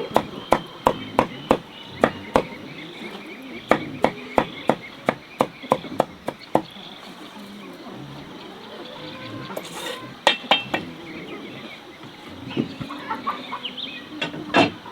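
Repeated sharp knocks, like a tool striking, about three a second in two runs of a few seconds each, then a few scattered strikes later.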